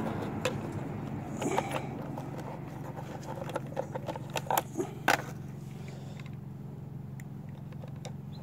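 Scattered clicks, taps and light scrapes of hard plastic parts being handled and fitted together on a car fuel pump module, the sharpest a few clicks about four to five seconds in, over a steady low hum.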